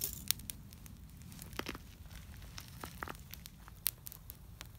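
Small fire of dry twigs crackling, with irregular sharp snaps and pops.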